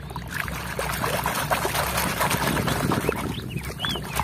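Water sloshing and splashing as a hand swishes a muddy plastic toy wheel loader back and forth in shallow water, washing the mud off it.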